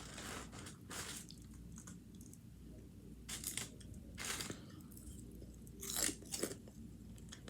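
A person chewing crunchy food close to the microphone, with a few separate crisp crunches between quieter chewing.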